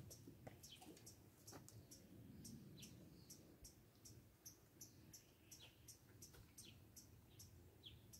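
Faint high chirps of small birds, repeating about three times a second, with now and then a lower falling chirp.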